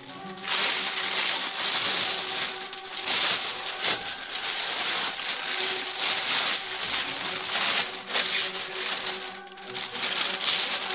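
Plastic vacuum-bagging film, resin flow medium and peel ply being pulled and crumpled off a freshly vacuum-infused carbon fiber part, with steady crinkling and crackling: the demoulding stage of a resin infusion. Background music with held notes plays underneath.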